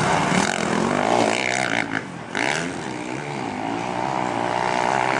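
Several motocross bikes racing, their engines revving up and down over one another, with a brief drop in sound about two seconds in.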